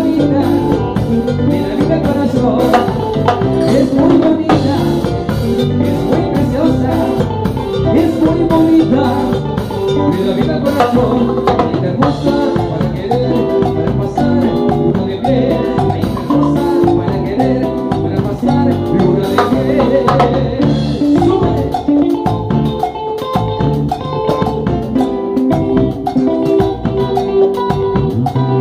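Live salsa band playing a tune during a sound check, with drums and percussion keeping a steady beat under the melody instruments.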